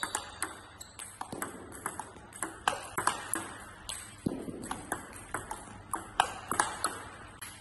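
Table tennis rally: the ball clicks off the rackets and the table in a quick, even back-and-forth, about three hits a second. The coach is blocking heavy topspin on the backhand, meeting the ball early on its way up.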